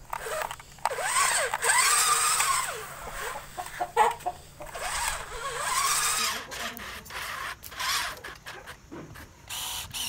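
Several rising-and-falling animal calls, with scattered clicks and knocks.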